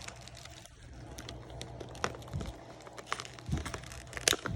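Packaging being opened by hand, crinkling with scattered sharp clicks and crackles.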